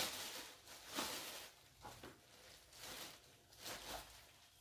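A plastic bag of flour rustling and crinkling as flour is scooped out, in a series of short, soft rustles.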